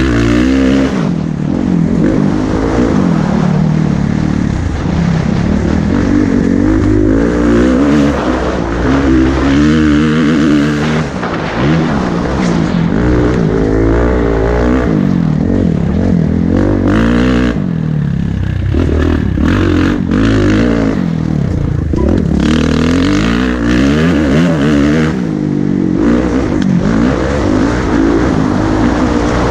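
Kawasaki four-stroke single-cylinder dirt bike engine at race pace, revving up and dropping back again and again as the rider accelerates, shifts and rolls off between corners.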